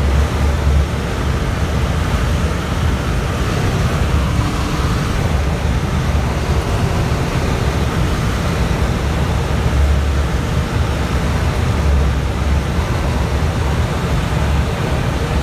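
Loud steady rush of wind with a low buffeting rumble, the airflow noise in a glider's cockpit while it climbs on aerotow behind a tow plane.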